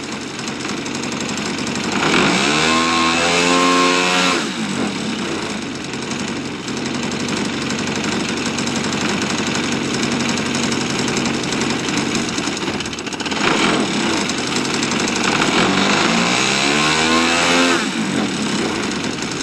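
3W-85 gasoline engine with a Keleo exhaust on a giant-scale RC P-51 Mustang, running on the ground at a low setting and throttled up twice to high revs, held for a couple of seconds each time before dropping back. It is a ground run-up to check the airframe before the first flight.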